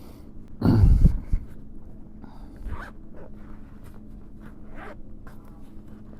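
A zipper pulled quickly once, about half a second in, followed by light handling clicks and rustles over a steady low hum.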